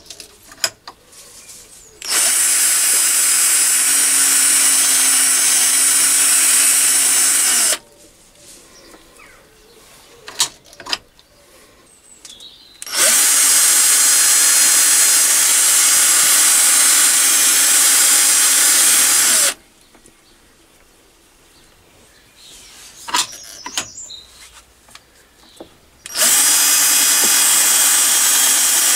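Power drill driving a toolpost-mounted spindle to drill holes in aluminium pipe. It runs three times for about six seconds each with a steady high whine, the third run starting near the end. Sharp clicks and knocks come between the runs.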